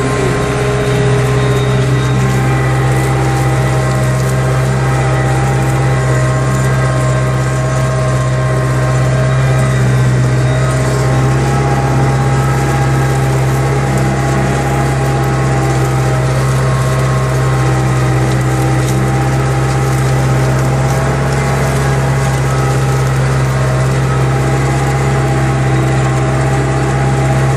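Tractor engine working under load while pulling a mounted plough through the soil, a steady low drone that holds one pitch throughout.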